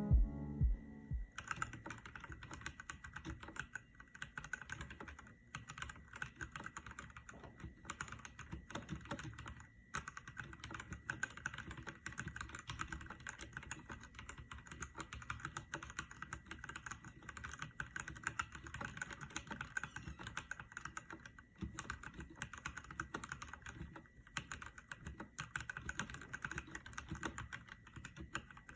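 Mechanical keyboard being typed on: a fast, continuous clatter of key clicks, with a few short pauses.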